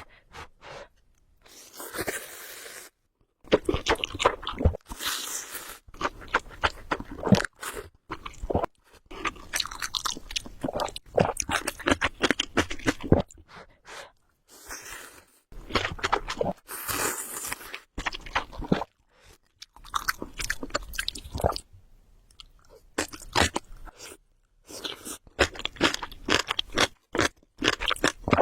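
Close-miked eating: chewing and crunching in bursts of a few seconds, split by short pauses.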